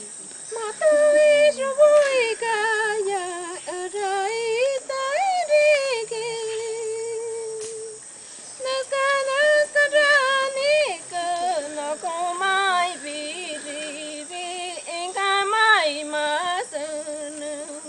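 A woman singing a Shipibo icaro solo, unaccompanied: a single melodic line with quick wavering ornaments and turns. It begins just under a second in, holds one long note, breaks off for a breath about eight seconds in, and then sings on.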